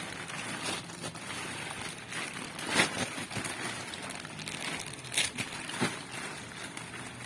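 Packaging being handled and unboxed: crinkling and rustling with a few sharp knocks, the loudest a little under three seconds in, over a low steady hum.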